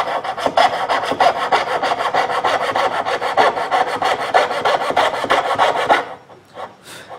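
Coping saw cutting through a walnut knife-handle block in rapid, even back-and-forth strokes, its fine blade rasping through the wood. The sawing stops about six seconds in.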